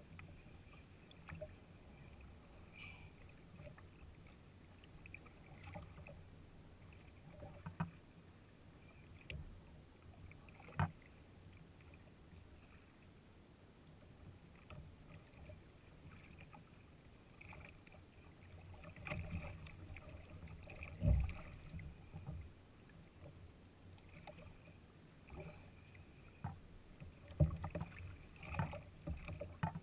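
Faint water sounds around a fishing kayak, broken by scattered short knocks and clicks on the hull, a few of them louder.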